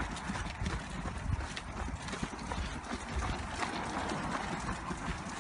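A pushchair's wheels clattering over brick paving as it is pushed along at walking pace: a continuous rolling rattle with many small knocks.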